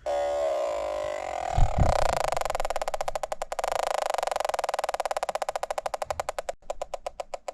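Electronic combustible gas leak detector switching on. It gives a steady electronic tone for about two seconds, then settles into rapid, even ticking that slows near the end. There is one low knock of handling at about the two-second mark.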